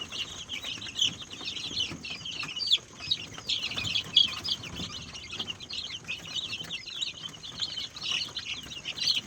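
A flock of ayam kampung (Indonesian native chickens), mostly young birds, peeping and chirping together in a dense, continuous chorus of high, overlapping chirps.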